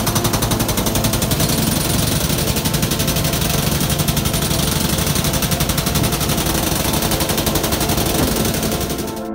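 Pneumatic hammer, a jackhammer or air spade, breaking ground at a tunnel face: a loud, rapid, even hammering that goes on without a break.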